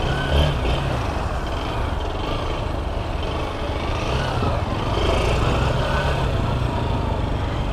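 Motorcycle engine running at low speed, its note rising and falling a little with the throttle, over a steady rush of wind and street noise.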